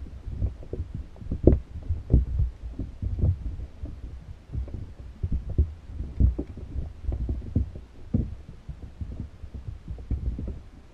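Muffled underwater rumble with irregular, uneven low thumps, as picked up by a GoPro in its waterproof housing sitting in shallow water inside a fish trap. The strongest thump comes about a second and a half in.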